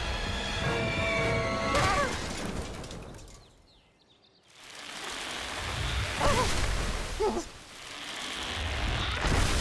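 Cartoon soundtrack: music, a brief near-silent pause about three and a half seconds in, then a crash with a rising rumble in the distance. Short sliding kitten mews come over the music.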